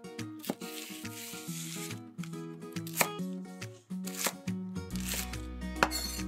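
Chef's knife chopping green onion on a wooden cutting board: several crisp chops, the sharpest about three, four and six seconds in, over light background music.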